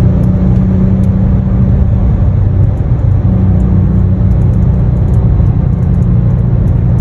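Car engine and leaking exhaust running under way in a tunnel: a loud, steady low drone.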